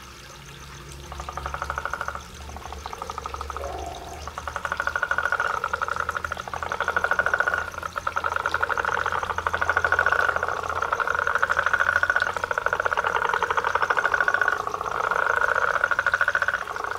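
A chorus of toads calling in the spring breeding season: long, rapidly pulsed trilling calls of one to two seconds each, several overlapping and following one another almost without a break.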